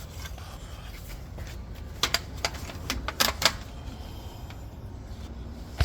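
A handful of sharp clicks and taps, clustered between about two and three and a half seconds in, with another right at the end, over a low steady rumble.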